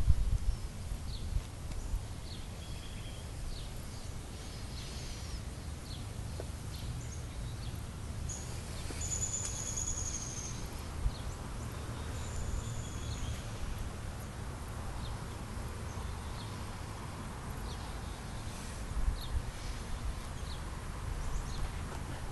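Outdoor ambience: a steady low rumble on the microphone, with small birds chirping now and then high overhead and one longer, brighter bird call about nine to ten seconds in.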